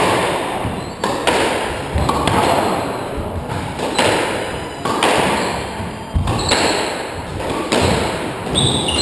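Squash rally: the ball cracks off the rackets and the court walls, each hit ringing in the enclosed court, about once a second.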